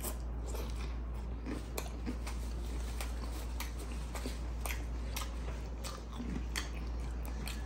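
A person chewing a mouthful of fried chicken and rice, with many irregular sharp clicks from the mouth.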